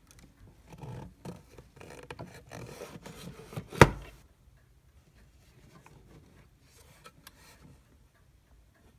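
Hands handling a wooden equipment case: rubbing and scraping against wood with small clicks, and one sharp knock a little under four seconds in. After the knock the sound goes faint.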